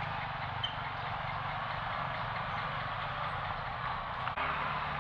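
Street traffic: a steady mix of motorcycle and car engines and tyre noise passing by.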